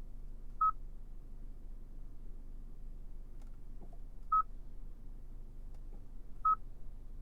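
Three short, single-pitched electronic beeps from the car, a few seconds apart, over a low steady hum.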